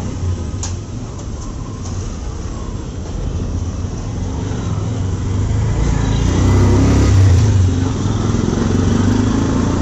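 Street traffic: a motor vehicle's engine rumbling past, growing louder to a peak about seven seconds in, then easing slightly.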